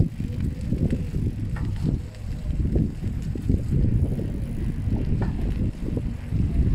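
Riding a bicycle with the camera on board: wind buffeting the microphone and road rumble make a deep, uneven rumble, with a few light clicks and rattles from the bike.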